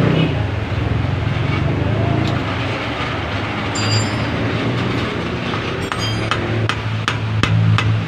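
Steady low hum with scattered sharp metallic clinks of hand tools on steering-rack parts, a few ringing briefly, more frequent near the end.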